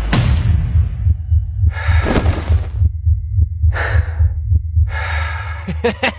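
A sound-effect heartbeat pounding low and steady under a thin high ringing tone, with three heavy breaths. It opens with a brief whoosh.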